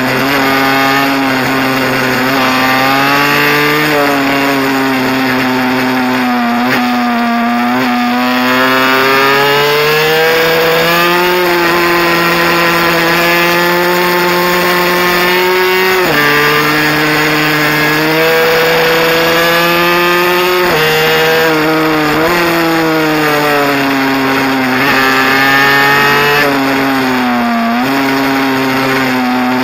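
Two-stroke engine of a Honda NSR mini bike ridden hard on a track, its revs climbing and falling through the corners, with the pitch dropping suddenly a few times, once about halfway through.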